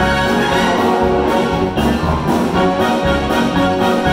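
Wind band playing an instrumental passage between sung verses, brass to the fore over a steady bass beat.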